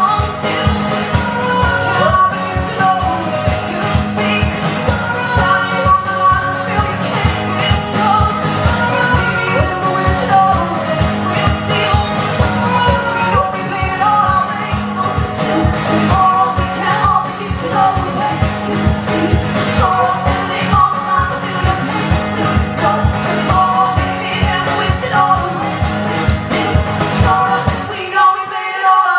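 Live folk-rock song: two women singing in harmony over driving, strummed acoustic guitars. The song finishes with a sudden stop about a second before the end.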